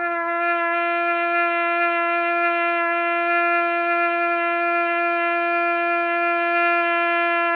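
Trumpet playing one long, steady held note in its middle register, with a bright stack of overtones and no change in pitch or loudness.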